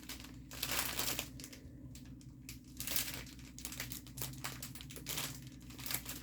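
Crinkling and rustling of small plastic packets of diamond-painting drills being handled and sorted through, in irregular bursts.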